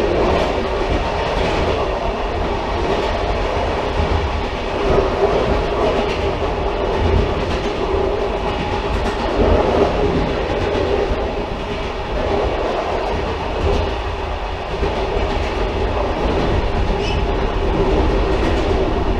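Railcar running along the track: a continuous low rumble with a steady hum and scattered wheel clicks over the rails.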